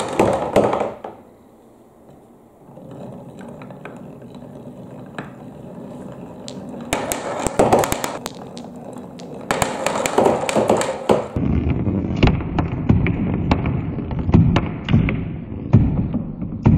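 Glass marbles rolling down a wooden marble run, rumbling along the carved wavy wooden channels and clicking and knocking against the wood. About two-thirds of the way in, they rattle onto a perforated board ramp and the rolling turns heavier and lower, with many sharp clicks.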